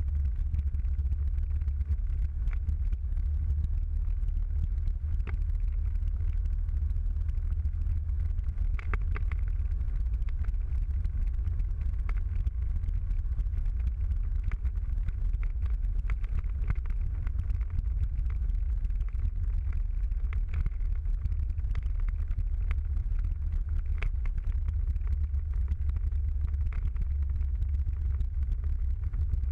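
A car driving steadily at road speed, heard from inside the cabin: an even low rumble of engine and tyres, with scattered faint ticks.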